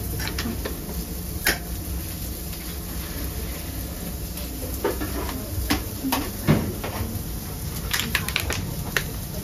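Food-stall kitchen clatter: scattered clicks and knocks of utensils and bottles against steel trays and a grill plate as a fish wrap is assembled, over a steady low hum.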